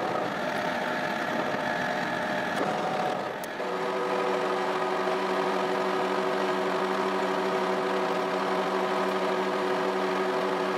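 Metal lathe running with a steel shaft spinning in its chuck: a steady machine whine made of several even tones. About three and a half seconds in, the sound changes abruptly to a different, steadier whine.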